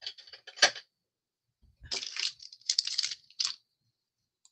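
Plastic Stampin' Blends markers clicking and clattering against each other as they are picked up and handled: a sharp click about half a second in, then a second or two of rattling clatter.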